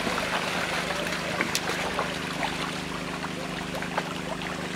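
Shallow muddy water sloshing and splashing as a mosquito-net seine loaded with catfish is dragged through it by men wading in rubber boots, with many small splashes and ticks. A steady low motor hum runs underneath.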